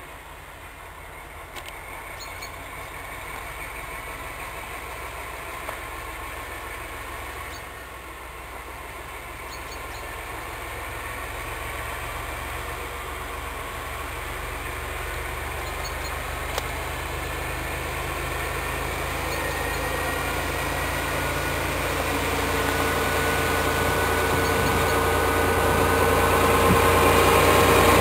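PKP SU45 diesel locomotive approaching with its train of double-deck coaches. The engine rumble grows steadily louder as it nears, with a steady engine tone coming through over the last several seconds.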